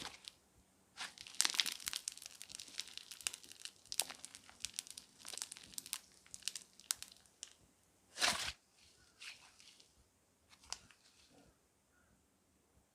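Crunchy slime being squeezed and pressed by hand, crackling and popping in quick clusters. One louder crackle comes about eight seconds in, and the sound then thins to a few scattered pops and fades out near the end.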